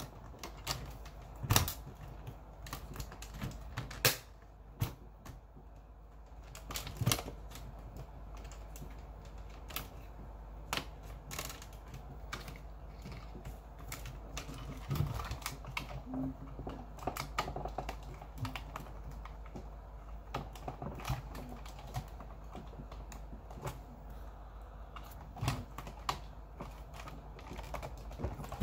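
Plastic housings of Allen-Bradley Compact I/O modules clicking and knocking as they are handled, aligned and latched onto the controller. The clicks come at irregular moments, a few of them sharper, over a steady low hum.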